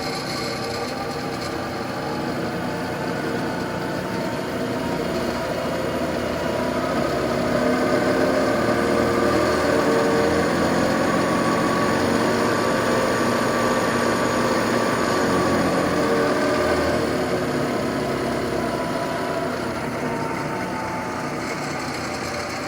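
Clausing 5914 metal lathe running under its own power, its variable-speed CVT drive being adjusted. The whine of the motor, belts and spindle rises in pitch and loudness through the first half, then falls back down over the second half.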